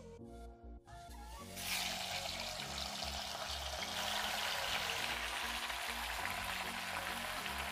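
Rohu fish pieces sizzling in hot oil in a kadai. The sizzle starts suddenly about a second and a half in, as the fish meets the oil, and goes on steadily over quiet background music.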